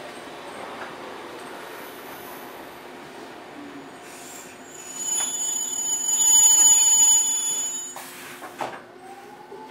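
Eizan Electric Railway Deo 700 series railcar running with a steady rumble. About halfway through, its wheels set up a loud, high-pitched metallic squeal that cuts off suddenly near the end, followed by a single clunk.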